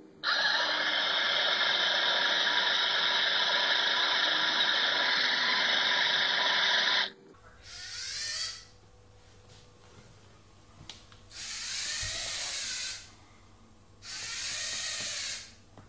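Lego Mindstorms NXT robot's servo motors whirring. A steady gear whir runs for about seven seconds and cuts off suddenly, followed by three shorter whirs of a second or two each.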